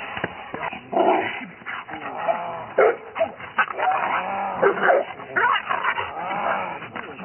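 Presa Canario barking repeatedly and aggressively at a helper in a bite sleeve during protection training.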